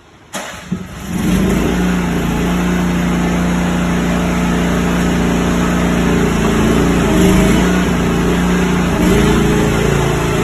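A mini excavator's engine starts up about half a second in and settles within a second into steady running.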